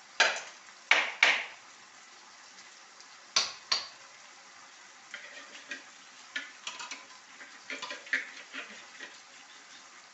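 A spoon knocks sharply against a cooking pot five times, in two groups, then makes lighter clicks and scrapes as it stirs the pot of dal.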